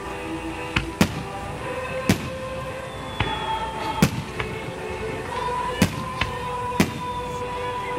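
Firework shells bursting in a string of sharp bangs, roughly one a second, over background music with long held notes.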